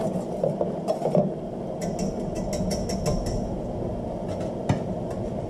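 A utensil stirring a thick cream sauce in a metal saucepan, clinking and scraping against the pan in quick clicks for the first three seconds or so. Then the stirring stops, leaving a steady low hum and a single tap near the end.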